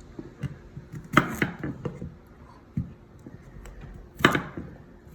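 Kitchen knife chopping vegetables on a cutting board: a few sharp knocks, the loudest a pair about a second in and another about four seconds in, with lighter taps between.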